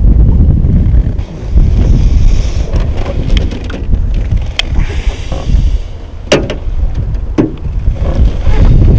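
Wind buffeting the microphone, with a few sharp knocks from the fishing rod and gear being handled in a small boat, the two loudest a little past the middle.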